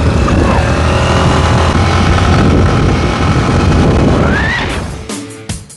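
Motorcycle running on the road with wind on the microphone. Near the end it fades out and drum-heavy music starts.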